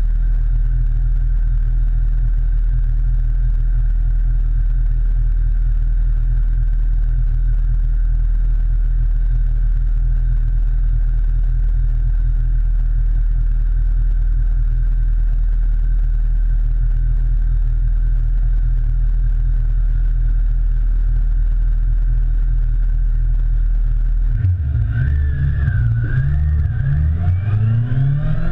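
Motorcycle engine idling steadily. Near the end the revs rise and fall a few times, then climb as the bike pulls away.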